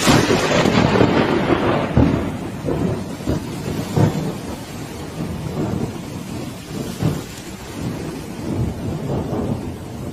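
Thunder from a close lightning strike: a sudden loud clap at the start that rolls on as rumbling, with further loud peaks about two and four seconds in. Heavy rain falls steadily throughout.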